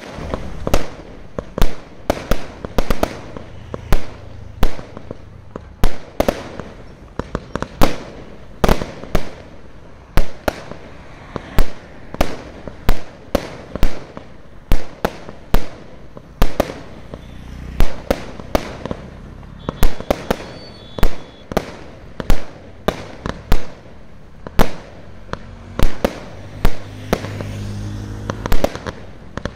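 Aerial fireworks fired from the ground, going off one after another: a long run of sharp bangs, irregularly spaced at about one or two a second, as the shells burst into showers of golden sparks.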